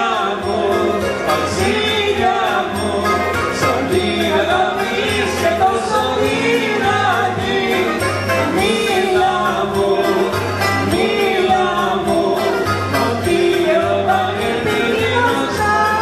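A woman singing a Greek song into a microphone over amplified backing music with a steady bass line.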